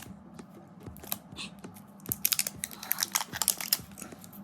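Plastic packaging of a tub of Flarp putty crinkling and clicking as it is handled and opened, sparse at first and then a dense run of sharp crackles from about halfway through.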